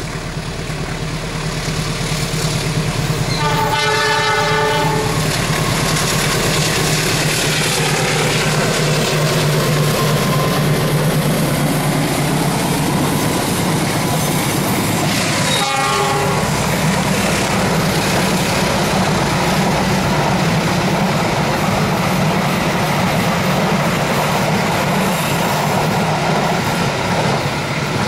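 Diesel-electric locomotive-hauled passenger trains passing, engine running steadily under broad rolling noise of wheels on the rails. The horn sounds for about a second and a half around four seconds in, and gives a short toot around sixteen seconds in.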